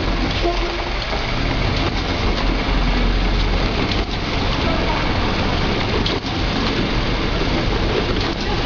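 Book stitching machine running: a loud, steady mechanical noise with faint ticks scattered through it.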